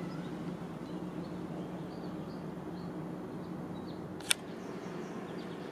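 Steady low hum with one sharp click a little past four seconds in.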